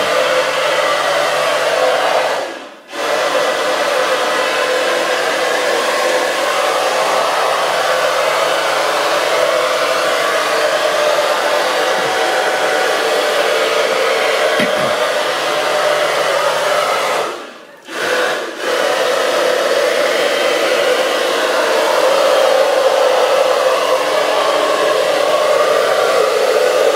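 Battery-powered mosquito aspirator (Prokopack type) running with a steady fan-motor whir as it sucks resting mosquitoes off the shelter wall. The sound drops out briefly twice.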